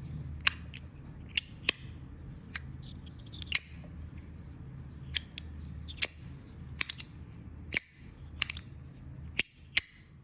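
Zerk fidget slider being slid back and forth by hand, giving sharp, irregular clicks about once or twice a second. Its owner suspects it isn't sliding properly because one of its magnets is coming loose.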